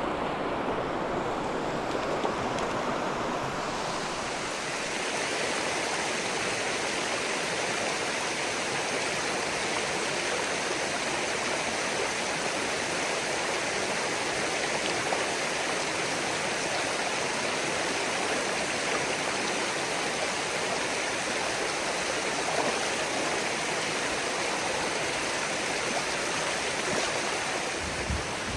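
Mountain stream water rushing steadily over rocks, with a hiss that grows brighter about four seconds in.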